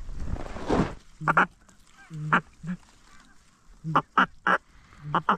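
Duck and goose calling: a series of short honks and quacks in uneven groups, three in quick succession about four seconds in. A rush of noise fills the first second.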